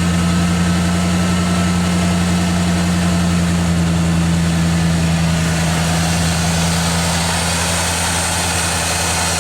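Newly installed engine in a 1987 Ford Bronco idling steadily, with an even hum that does not change. It sounds great: the firing order is right.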